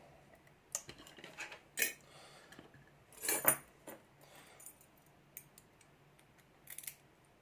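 Small metal parts of a padlock and its lock cylinder clinking and clicking as they are handled, a few separate clinks with the loudest cluster about halfway through.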